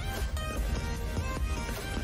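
Background music with a strong, steady bass line.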